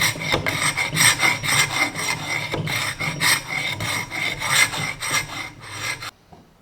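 Hand scraper blade scraping old finish off a wooden table leg in quick repeated strokes, about three a second, stopping suddenly near the end.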